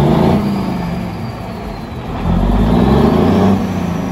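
1988 International F-9300 semi truck's diesel engine running, revved up twice: a surge fading over the first second, then a longer rise about two seconds in that holds for about a second and a half before dropping back.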